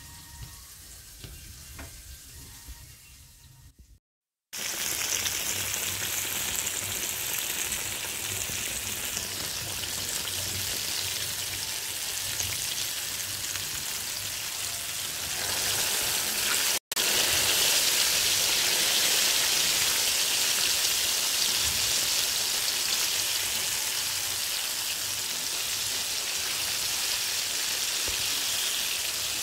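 Flour-coated fish fillets frying in shallow oil in a pan, a steady sizzle. The first few seconds are quiet; the sizzle starts abruptly about four seconds in, is briefly cut off again past the middle, and is a little louder afterwards.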